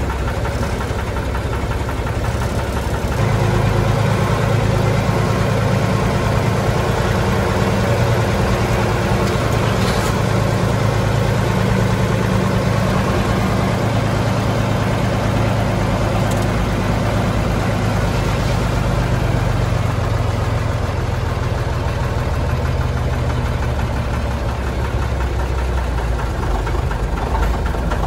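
Praga V3S truck's air-cooled Tatra six-cylinder diesel heard from inside the cab while driving, a steady running note that grows louder and deeper about three seconds in and eases slightly near the end.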